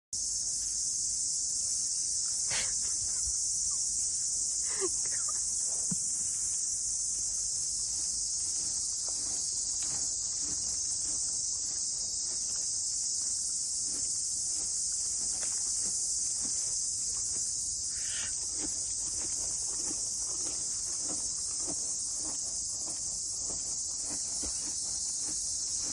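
A steady, high-pitched chorus of insects that never lets up, with a few faint clicks and knocks scattered through it.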